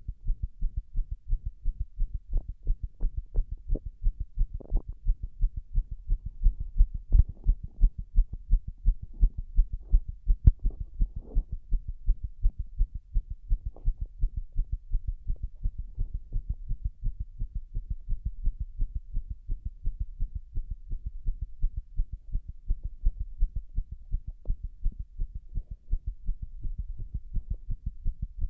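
Human heart sounds: a continuous, quick run of low thuds, with a few stronger beats about a third of the way in. The uploader presents them as arrhythmic heartbeats.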